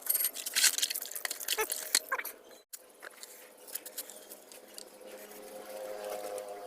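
Wet scrubbing and clicking of rusty brake parts being washed with soapy water: many short scrapes and clicks, then a break about two and a half seconds in, after which only a faint steady hum remains.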